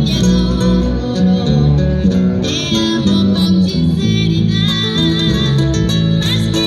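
Live acoustic band music: acoustic guitars strumming and plucking while a violin plays the melody.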